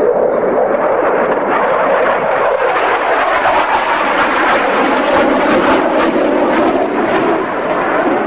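Delta-wing jet fighter flying past in an air display: loud, steady jet engine noise, with a rough crackle in the middle of the pass.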